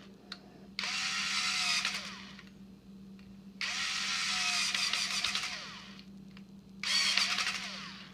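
Cordless screwdriver running in three short bursts, its motor pitch rising as each starts and dropping as it stops, as it drives the cord-clamp screws down on a replacement plug.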